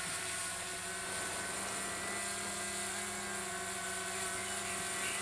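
DJI Mavic Mini quadcopter drone in flight, its propellers giving a steady multi-toned whine.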